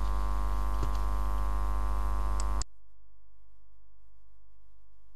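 Steady electrical mains hum with many evenly spaced overtones and a few faint clicks. About two and a half seconds in it drops abruptly to a much quieter hum.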